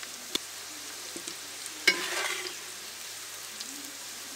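Oil sizzling steadily in a hot pan after frying green chillies, garlic and ginger, with a faint metal click and then a sharp metal clank about two seconds in, followed by half a second of rattling as the metal cookware is handled.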